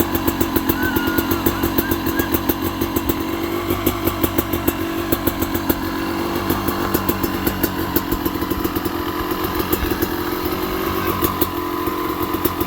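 1995 Yamaha WR250Z's single-cylinder two-stroke engine running steadily, being heat-cycled to break in the freshly rebuilt engine.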